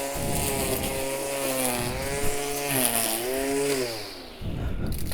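String trimmer running while cutting grass, its pitch dipping and rising with the load, then fading about four seconds in.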